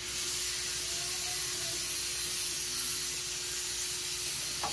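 Shop vacuum running steadily with a hiss, its hose drawing air inside an open rear differential housing to clean it out before the gears are welded.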